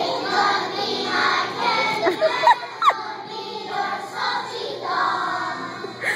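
A choir of young children singing together, with two short, sharp rising sounds about two and a half and three seconds in.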